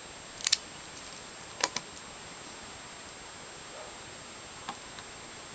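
Sharp metallic clicks of a brass flip-top lighter being snapped shut and handled, two quick pairs about a second apart, then two faint ticks as a tin tealight is set down.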